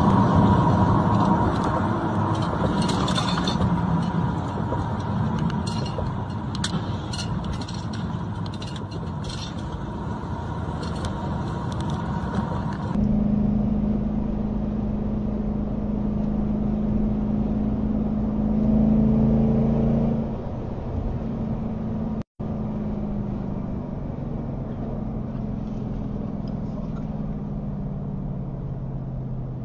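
Road, wind and engine noise of a vehicle driving, picked up by a dashcam microphone. About halfway through it changes abruptly to a steadier, lower engine drone, and it cuts out completely for an instant a few seconds later.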